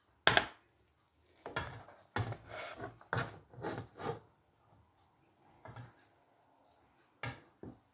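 A serving utensil knocking and scraping against the cooking pot and a plate as biryani is cut out and served: one sharp knock right at the start, then a run of scrapes and clinks over the next few seconds, and a few light taps near the end.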